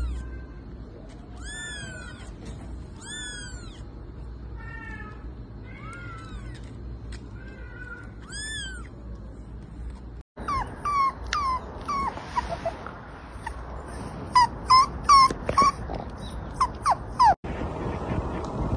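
Kittens mewing, a high arching mew every second or two. After a sudden break about ten seconds in comes a run of short, high-pitched falling whimpers and yelps from a puppy, thickest in the middle of that stretch.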